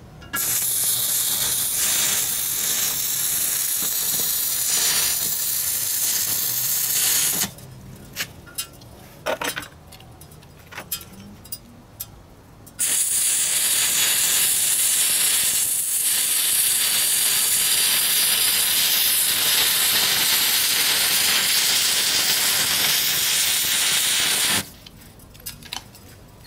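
Stick-welding arc from a homemade single-transistor inverter welder burning a 2 mm electrode on steel: a steady hiss for about seven seconds, then a few seconds of scattered clicks, then a second steady run of about twelve seconds that stops near the end.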